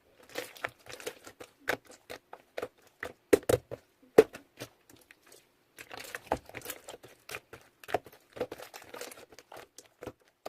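Plastic packaging being handled: crinkling and rustling, broken by irregular sharp clicks and taps, with a longer stretch of crinkling in the second half.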